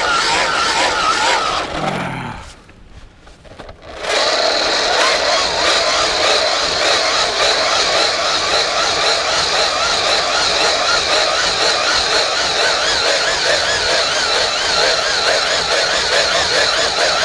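Battery-powered hand-held blower running with a wavering whine, blowing air into the evaporator fire. About two seconds in it cuts off, its motor winding down in pitch, and about four seconds in it starts again and runs steadily on.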